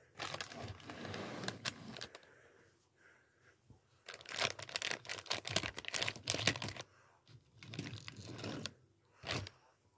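Thin clear plastic bag crinkling as a die-cast toy truck inside it is handled, in several bursts with the loudest in the middle. A sharp tap comes near the end.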